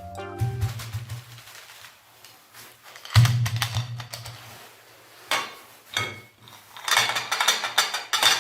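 Electric meat grinder running with a low motor hum that starts, fades, and comes back strongly about three seconds in. Knocks and clattering come from chocolate pieces going through it, densest near the end.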